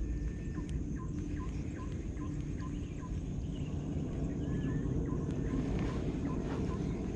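A bird calls with a short note repeated about two to three times a second, with a few other brief chirps, over a steady low rumble.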